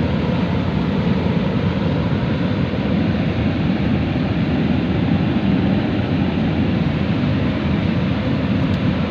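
Fast-flowing river water rushing steadily, a continuous even noise with no breaks.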